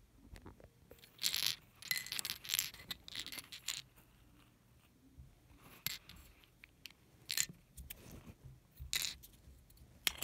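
Small hard plastic Lego pieces clicking and rattling as transparent crystal pieces are handled in and against grey plastic container pieces. A flurry of clatter in the first few seconds, then a few separate clicks.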